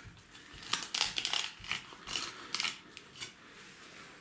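Knife cutting a fillet off a chum salmon along the backbone on a plastic cutting board: a quick run of short, crisp scraping and crunching strokes starting about a second in and lasting about two and a half seconds.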